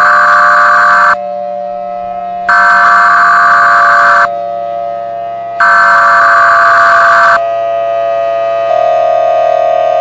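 Emergency Alert System SAME header: three loud, buzzy data bursts, each under two seconds long, about a second apart, over a steady background tone. Near the end a louder, steady alert tone comes in, marking the start of an emergency broadcast.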